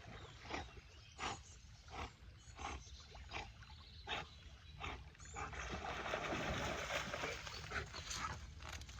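Dog hiccupping: a run of short, evenly spaced hiccups about every 0.7 s, faint, followed by a few seconds of steady rushing noise.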